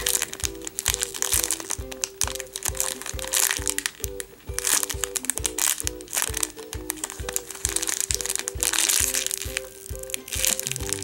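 Clear plastic packaging crinkling on and off as a slow-rising foam squishy is squeezed through it, over background music with a steady beat.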